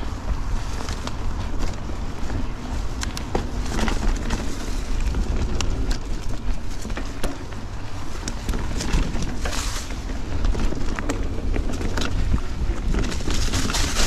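Riding a Giant Trance 29 mountain bike fast along dirt singletrack: wind buffeting the action camera's microphone with a low rumble, over the clicks and rattles of the bike and tyres on the trail. Louder rushes of hiss come about ten seconds in and again near the end.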